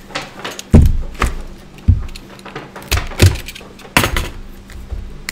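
A clear plastic National Treasures football card box being handled and tipped on a tabletop: about half a dozen knocks and thuds at irregular spacing, the loudest just under a second in.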